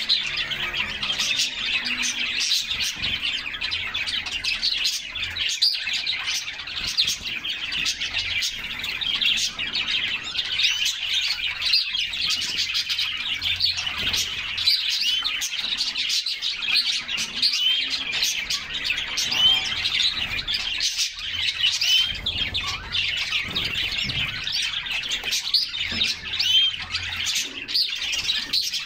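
A group of canaries chirping and singing together, a dense, unbroken stream of many overlapping short high notes.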